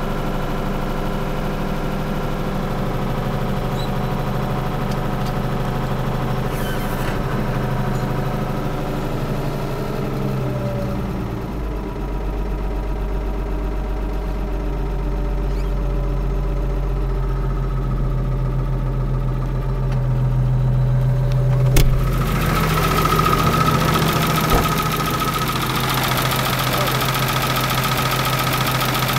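Ford 7810 tractor's six-cylinder diesel engine running just after a cold start, heard from inside the cab: its fast idle of about 1500 rpm drops to a steady idle of about 960 rpm around ten seconds in. About two-thirds of the way through there is a sharp click, and the engine then sounds brighter and louder as it is heard out in the open beside the engine bay.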